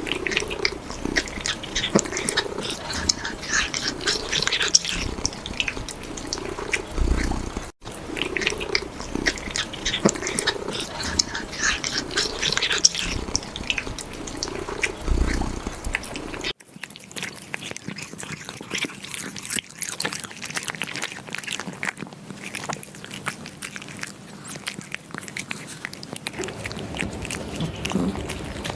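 Kittens eating raw meat: wet chewing, smacking and clicking, with short low cat vocalizations between bites in the first half or so. After a cut it is mainly chewing.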